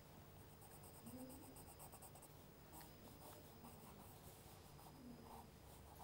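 Faint, rapid scratching of a pencil on sketchbook paper as short hatching strokes are drawn, coming in quick runs.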